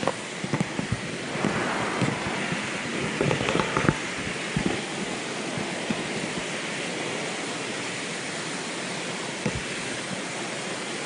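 Steady rush of river water flowing over rocks, with a few short knocks and scuffs in the first four seconds.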